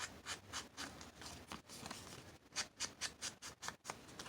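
An ink pad being rubbed and dabbed along the edges of a paper card, a quick run of short scratchy strokes, about three a second.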